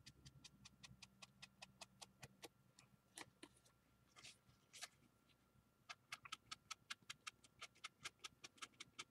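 Ink blending tool with a foam pad dabbed rapidly on the edges of a paper pocket, applying distress ink: a faint run of light quick taps, about five a second. Near the middle the taps stop for two brief paper rustles, then start again.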